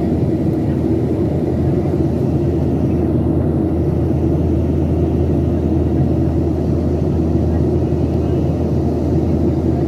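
Steady low cabin rumble of a Boeing 737-800 in flight: engine noise and airflow heard from a passenger seat, unchanging throughout.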